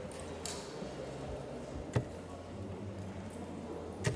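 Two steel-tip darts striking a Winmau Blade 6 bristle dartboard, two short, sharp thuds about two seconds apart, over a steady low background hum.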